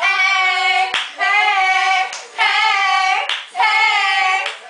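Young female voices singing loudly together in four long drawn-out notes, each about a second, with short breaks between them.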